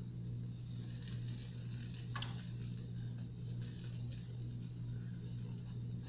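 Steady low hum, with a faint click about two seconds in.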